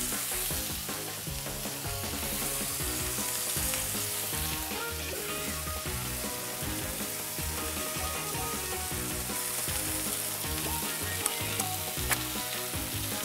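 Sirloin steak and halved linguiça sausages searing in oil in a cast-iron skillet, sizzling steadily, with background music underneath.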